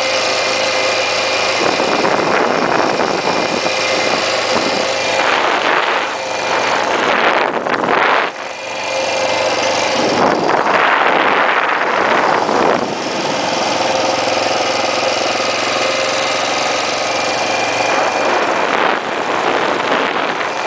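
1980 Yamaha XT500's 500 cc single-cylinder four-stroke engine running as the bike is ridden. Its note changes pitch several times with throttle and gear changes, over a constant rush of noise.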